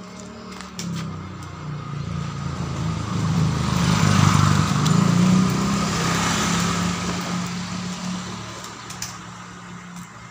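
A motor vehicle going past: its engine sound builds to a peak about four to six seconds in, then fades away.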